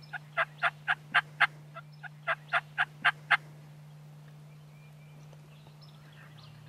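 Turkey yelping: two runs of short, sharp yelps at about four a second, stopping about three and a half seconds in.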